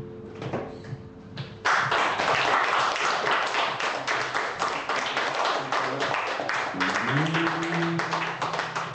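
The last acoustic guitar chord rings out and fades, then an audience starts applauding suddenly about a second and a half in. The clapping carries on, with a voice speaking over it near the end.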